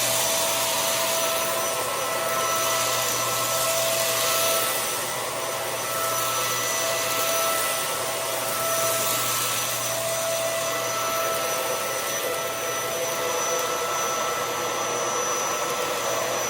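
Hoover Air Lift upright vacuum cleaner running steadily, a motor rush with a steady whine over it, its roller brush not turning.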